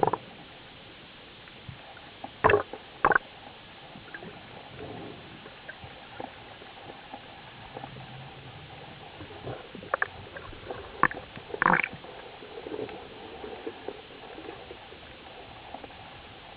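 Underwater ambience recorded through a dive camera as a freediving spearfisher descends: a steady hiss with scattered sharp clicks and knocks, two close together a couple of seconds in and a few more between about ten and twelve seconds.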